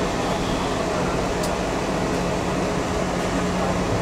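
Inside a moving tram: steady running noise with a constant low hum, and a brief faint tick about a second and a half in.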